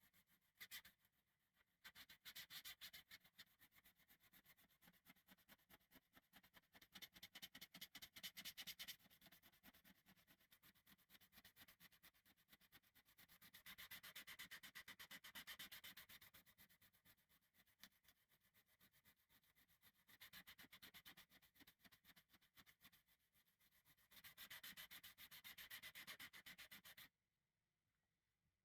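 Rapid back-and-forth hand sanding strokes, going in spells of several seconds with short pauses and stopping abruptly near the end.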